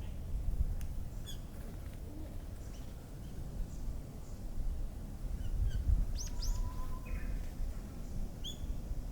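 Wild songbirds calling: scattered short chirps, with a few quick, high, falling notes and a brief held whistle about two-thirds of the way in. A steady low rumble runs underneath.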